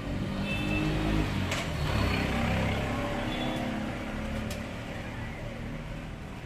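A motor vehicle's engine running, loudest about two seconds in and then slowly fading, with a couple of faint clicks.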